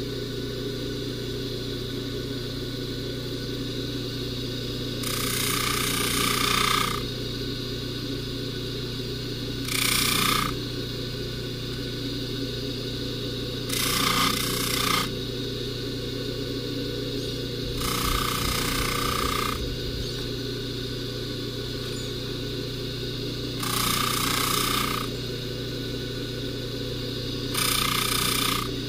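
Jewelry polishing buffer's motor running with a steady hum, and six times a louder hissing scrub of one to two seconds as the necklace chain is pressed against the spinning buffing wheel.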